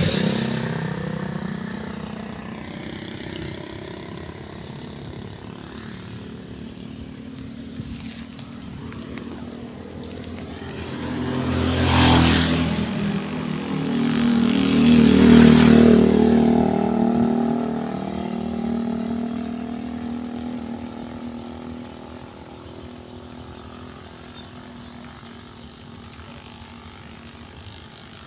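Motor vehicle engines passing by: one fades away at the start, then vehicles pass loudest about twelve and fifteen seconds in before the sound dies down.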